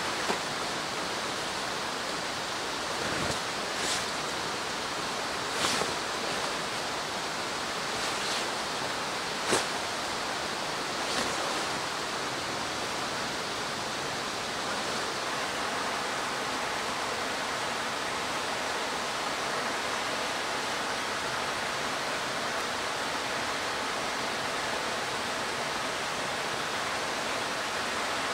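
Steady rushing of running water, with a few short knocks and rustles from handling the canvas tarp in the first dozen seconds, the sharpest about ten seconds in.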